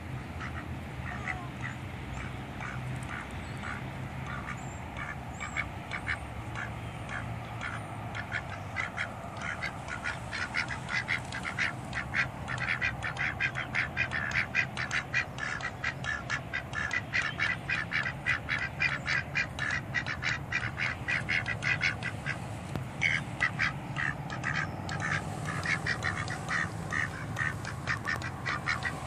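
Two white domestic ducks quacking in rapid, repeated short calls, several a second, sparse at first and then faster and louder about a third of the way in, with a brief lull before they pick up again near the end.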